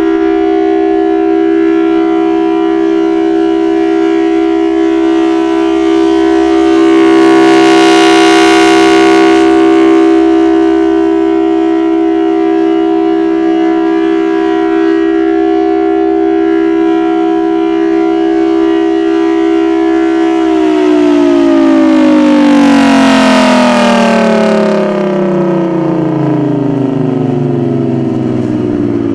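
Federal Signal Thunderbolt 1000T low-pitch outdoor warning siren sounding a steady alert tone. It swells louder twice as the rotating horn sweeps past. About twenty seconds in, the alert ends and the siren winds down, its pitch sliding steadily lower.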